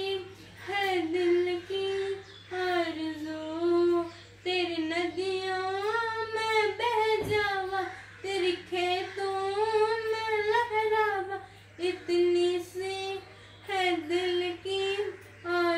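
A girl singing a slow Hindi patriotic song solo and unaccompanied, with long held, ornamented notes and short breaks between phrases. A faint steady low hum runs underneath, and there is one brief click about seven seconds in.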